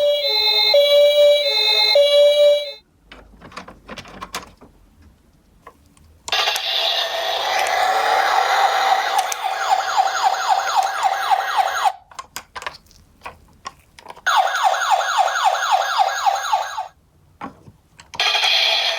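Ambulance-style sirens: a two-tone hi-lo siren alternating between two notes at the start, then a rapid yelping siren in two stretches, with short pauses holding only small clicks between them.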